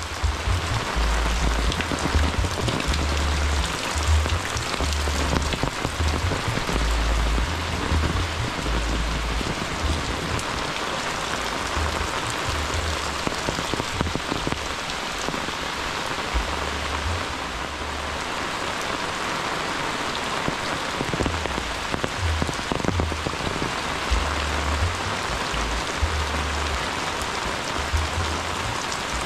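Steady, heavy rain pattering on muddy ground, puddles and clay-tile roofs, an even hiss of drops throughout, with a low rumble that comes and goes underneath.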